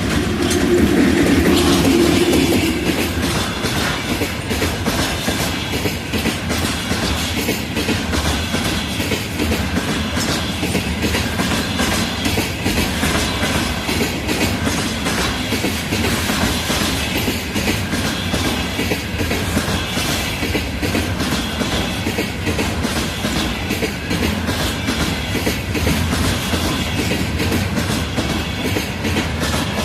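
Train hauled by a VL10 electric locomotive, its wheels clattering over rail joints in a steady clickety-clack rhythm, loudest in the first couple of seconds.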